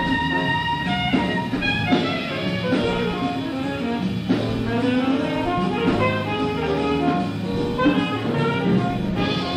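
Jazz big band playing a swinging up-tempo chart, saxophones and brass over a drum kit.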